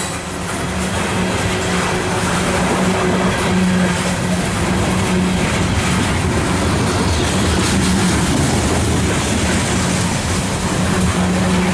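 Loaded coal cars of a freight train rolling past at close range: steady noise of steel wheels on the rails, with a low hum underneath.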